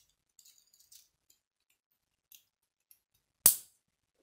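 K'nex plastic rods and connectors being handled and fitted together: faint light rattles and ticks, then one sharp, loud snap near the end as a piece clicks into place.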